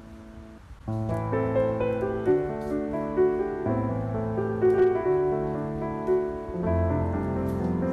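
Background music: soft piano playing sustained chords, quieter for the first second and then fuller and louder from about a second in.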